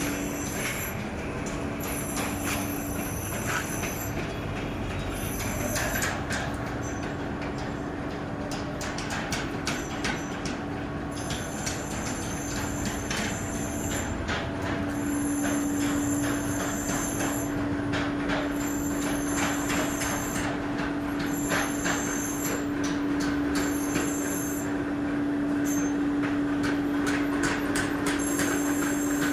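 Mechanical power hammer running: a steady motor hum under a dense clatter of blows, with a high whine that comes and goes.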